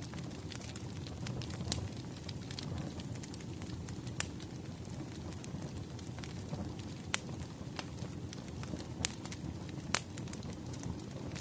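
Wood fire crackling: a steady low rumble of burning logs under many small snaps and scattered sharper pops, a few of them louder than the rest.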